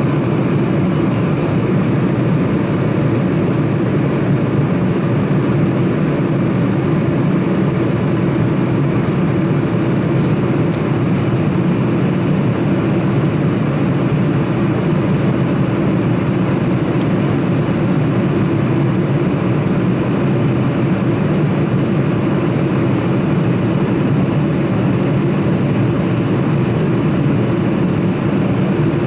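Boeing 747-400 airliner's cabin noise in flight, heard from a window seat over the wing: an even, deep rush of airflow and turbofan engine drone that holds steady throughout.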